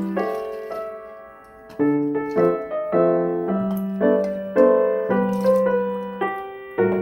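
Background piano music: gentle chords and single notes struck one after another, each ringing and dying away.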